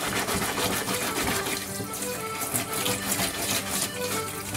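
Kitchen tap water running and splashing into a stainless steel sink while a burdock root is scrubbed with a sponge under the stream. Background accordion music plays underneath.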